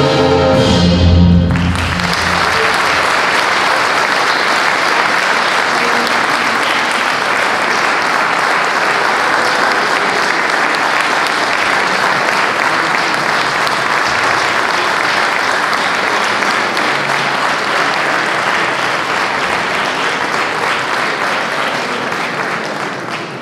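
A wind band's final chord cuts off about a second and a half in, followed by sustained audience applause that starts to fade near the end.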